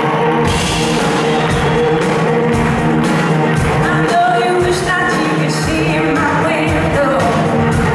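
A blues-rock band playing loud and live: electric guitars, bass and drums, with a woman singing lead.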